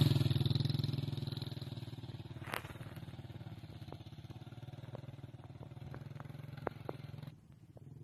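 Small motorcycle engine running as the bike rides away, fading steadily as it moves off, with a few sharp clicks along the way. The sound cuts off abruptly near the end.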